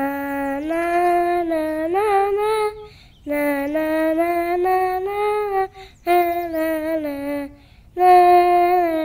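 A high voice singing a wordless tune, humming or 'na-na' syllables, in long held notes with small slides between them, in four phrases broken by short pauses.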